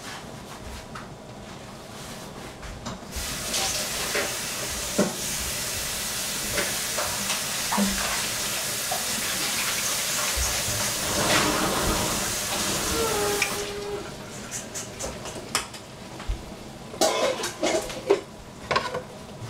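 Kitchen sounds: a steady hiss starts about three seconds in and stops suddenly some ten seconds later, with scattered clinks and knocks of pots, pans and utensils, which come thicker near the end.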